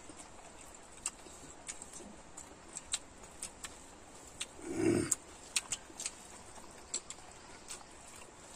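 Close-miked mukbang eating sounds: wet chewing and lip-smacking of people eating rice and curry with their hands, a run of sharp mouth clicks every half second or so. About five seconds in there is a brief low hum of the voice with the mouth full.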